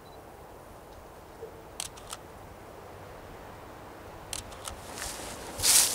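Shutter of a Canon EOS-1D Mark III DSLR firing: two separate shots about two seconds in, then a quick burst of three frames about four and a half seconds in. A louder rustle of handling follows near the end.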